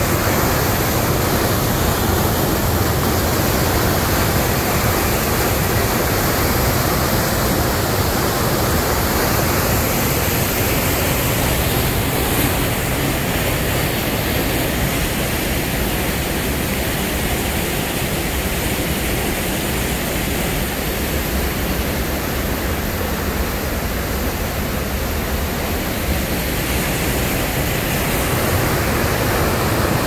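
Whitewater waterfall and rapids rushing over rock: a loud, steady rush of water.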